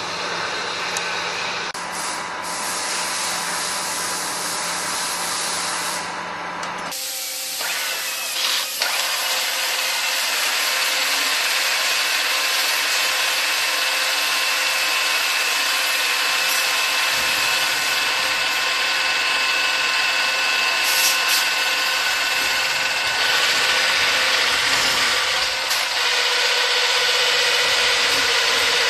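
Horizontal CNC boring mill's spindle cutting the end face of a welded steel square tube: a steady metal-cutting noise with a high whine. About seven seconds in it takes over from a lower machine hum, and a couple of knocks follow soon after.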